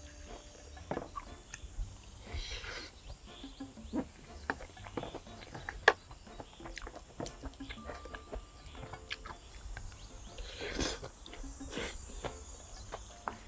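Close-up eating sounds: a wooden spoon scraping and clicking against a ceramic dish, and chewing of mixed barley bibimbap, as a scatter of small sharp clicks and knocks with one louder knock near the middle.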